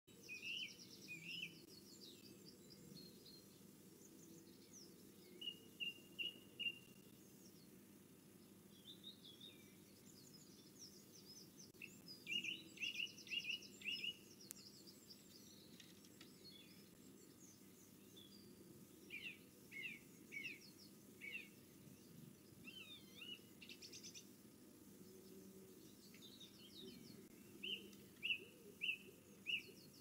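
Garden songbirds calling and singing: short phrases of three or four quick notes repeated every few seconds, with higher rapid trills between them, over faint steady background noise.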